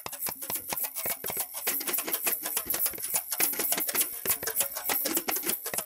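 A dense, irregular run of rapid sharp clicks and clattering ticks with a bright hiss over them: the sound design of a cooking show's opening titles.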